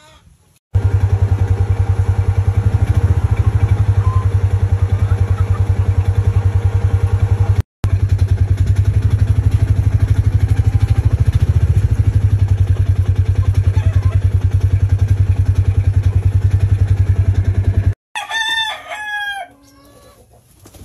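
A small engine running loud and steady with a fast, even pulse, broken by a brief dropout partway through. It cuts off near the end, and a rooster crows.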